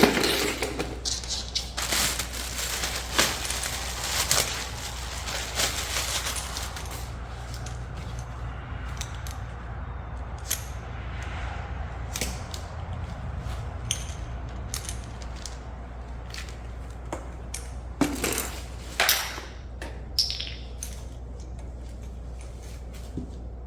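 Plastic parts of an electric pressure washer being handled and fitted together during assembly: scattered clicks, knocks and rattles, denser and crackly in the first several seconds, with a few sharper knocks near the end, over a steady low hum.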